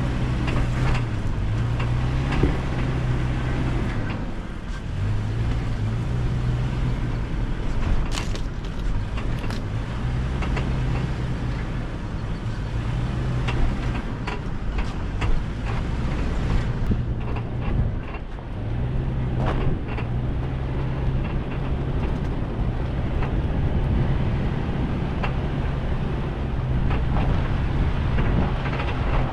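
Vehicle engine running steadily while driving on a rough trail, its hum dropping and returning in pitch several times, with scattered clicks and knocks over it.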